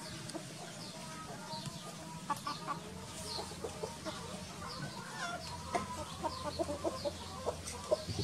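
Chickens clucking, with many short calls overlapping throughout.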